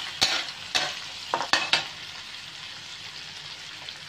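Metal spatula scraping and knocking against a steel wok about five times in the first two seconds as crab pieces are stirred in hot oil, then a steady sizzle of the crab frying.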